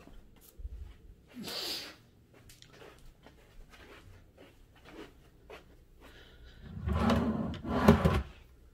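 A wooden hotel-furniture drawer sliding and shutting: a short scrape about one and a half seconds in, then a longer, louder slide ending in a knock near the end.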